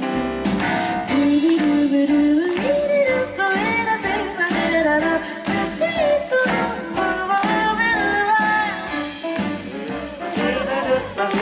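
Female singer scat-singing live: wordless, quick, gliding vocal runs into a microphone over a band with electric bass and drum kit, heard through the PA.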